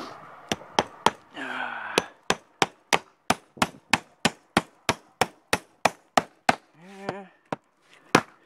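Claw hammer nailing a wooden strip down onto a felt-covered roof deck. There are a few separate blows, then a steady run of about fifteen sharp blows at roughly three a second, and two more strikes near the end.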